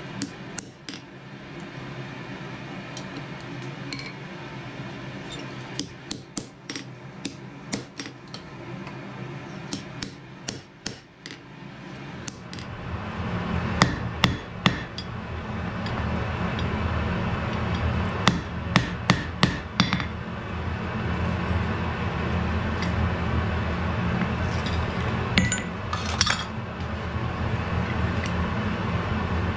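Hand hammer striking a hot wrought-iron axe head on the anvil: sharp metallic strikes in irregular bursts, with pauses between them. About twelve seconds in, a steady low hum comes in under the strikes.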